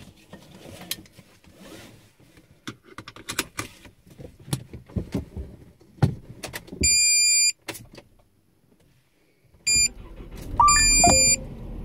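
Clicks, knocks and rustles of handling inside a parked car, then an electronic beep lasting under a second about seven seconds in. Near the end come two more short beeps and the car's engine starting and settling into a steady run.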